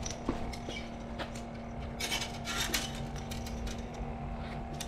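Handling noise: scattered light clicks and rubbing, busiest about two seconds in, over a steady low hum.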